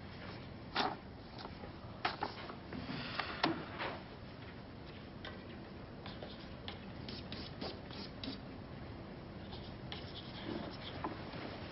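Quiet indoor room tone with a few sharp light knocks in the first few seconds and fainter scattered rustles and scrapes after that: a student sitting down at a classroom desk, with clothing and furniture moving.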